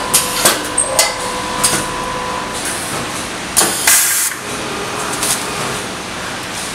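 Vertical form-fill-seal packing machine running, with sharp mechanical clicks, a steady tone for the first two and a half seconds, and two loud short hisses of compressed air about three and a half and four seconds in.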